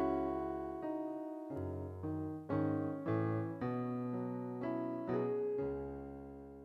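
Closing music played on a keyboard, a slow run of sustained notes and chords that fades out near the end.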